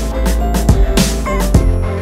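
Background music with a steady beat: drum hits about every half to three-quarters of a second over sustained synth notes and a deep bass.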